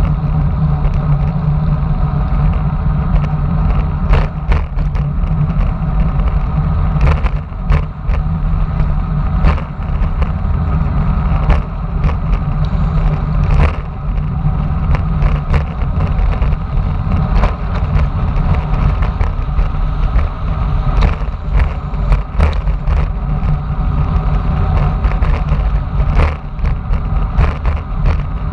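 Wind buffeting the microphone of a camera on a bicycle descending at speed, a steady loud low rumble mixed with tyre and road noise. Scattered short clicks and rattles come from the bike over bumps in the road.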